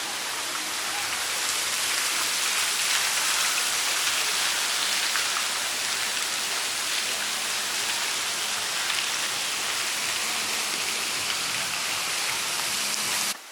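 Steady, even hiss of falling water, cutting off suddenly near the end.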